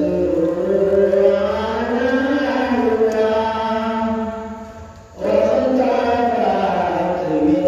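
A man chanting a Milad Sharif, a devotional recitation in praise of the Prophet, in long, slowly bending melodic phrases. The phrase fades out about five seconds in and a new one starts at once.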